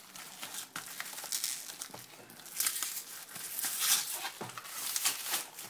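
Clear plastic wrapping crinkling and crackling as it is pulled and torn off a deep dish pizza, the crackle busier and louder in the second half.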